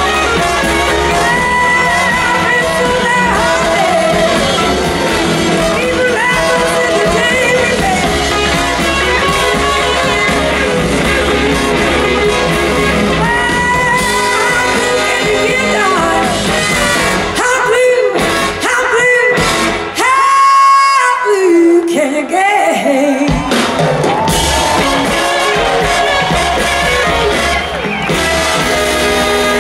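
Live electric blues band playing: two electric guitars over drums and bass, with a woman singing. About two-thirds of the way through, the bass and drums drop out for a few seconds under a lone high held note that bends and falls, then the full band comes back in.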